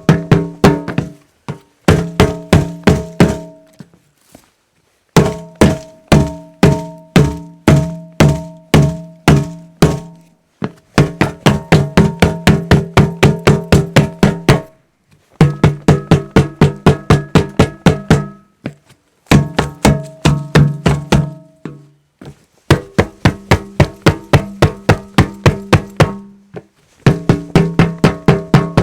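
A hollow object struck over and over in quick runs of knocks, about two to three a second. Each hit gives a short, pitched, resonant ring. Brief pauses fall between the runs.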